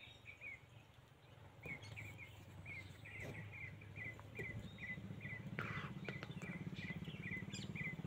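A bird calling, a quick run of short chirping notes, about two or three a second, over a low steady hum that grows louder in the second half.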